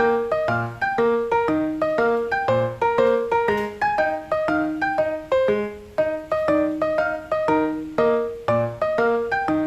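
Background music: a solo piano playing a steady run of notes, several a second.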